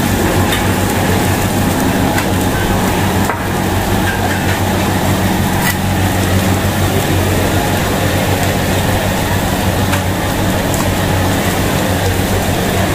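Steady loud rushing noise and low hum of a busy food-court cooking area, with a few faint clicks and knocks.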